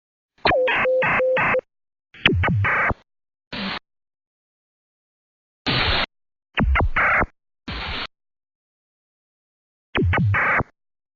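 Shortwave radio signals on the 11-metre band, heard through a WebSDR receiver: about seven short bursts of electronic blurping and chirping, several opening with a quick falling pitch sweep, each cutting off abruptly into dead silence. The first burst holds a steady tone under a rapid stutter.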